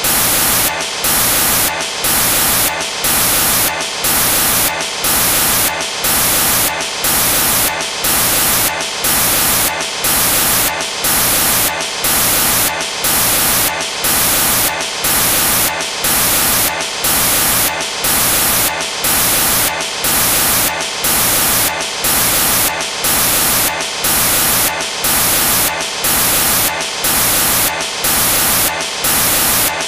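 Loud static hiss that dips evenly in level about once a second, with no other sound: a digital audio glitch rather than any sound from the gym.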